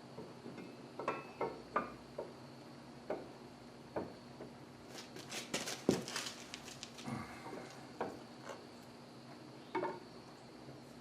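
Steel camshaft being slid into freshly installed cam bearings in an International Harvester 500C engine block, giving scattered metallic clinks and knocks, with a quick run of clicks and a sharper knock about halfway through. The shaft is binding in the bearings, a tight fit that turns out to be caused by a burr.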